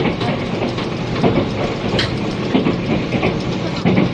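Interior running sound of a 485 series electric limited express: a steady rumble of wheels on rail, with a few rail-joint clacks, one sharp click about two seconds in, under cassette tape hiss.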